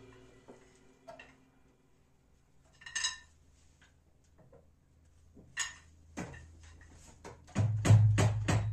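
A few scattered light clinks and taps from the NUX DM7X electronic drum kit being handled between songs. Near the end, drumming on the kit with backing music starts loudly.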